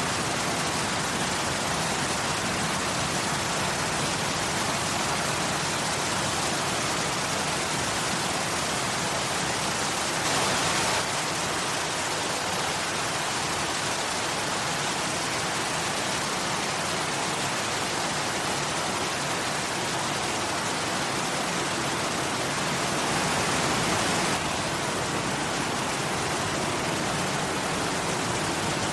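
Waterfall: a steady rush of falling water, swelling slightly louder twice for a second or so, about a third of the way in and again near the end.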